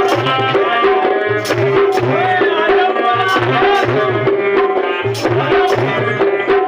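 Traditional Indian folk music: hand drums play a steady repeating rhythm under a held drone-like note and a wavering melody line, with sharp regular clicks over the top.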